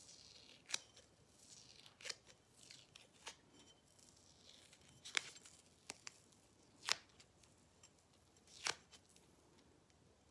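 Foam heart stickers being peeled off a spray-painted glass pint jar: faint tearing and crackling as the stickers and the paint film over them lift, with about five sharp clicks.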